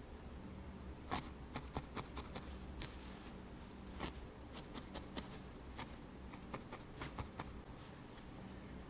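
Felting needle stabbing repeatedly into wool, shaping a needle-felted cat's nose: a run of about twenty sharp pokes at an uneven pace of two to three a second, pausing briefly around three seconds in, and stopping near the end.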